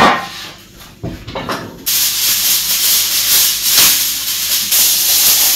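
A sharp metallic knock as a baking tray is set down, then, from about two seconds in, aluminium foil being pulled off the roll and spread over the tray: a loud, steady crinkling hiss.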